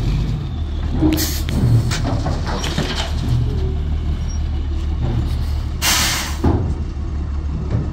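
Dump truck's diesel engine running as the truck pulls forward with its bed raised after tipping a load of gravel, with some knocks and rattles. A loud burst of air hissing comes about six seconds in.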